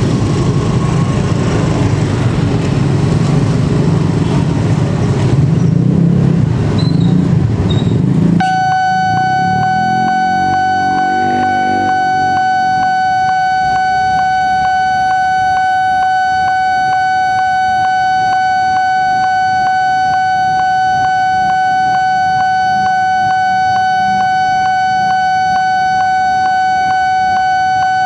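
Road traffic runs past until, about eight seconds in, a railway level-crossing warning alarm starts up: a steady electronic tone that holds unbroken, signalling an approaching train.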